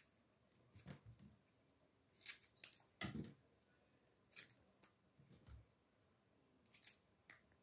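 Faint, scattered handling sounds: short rustles and soft knocks about once a second, from hands working around a bowl of strawberries and plastic bags.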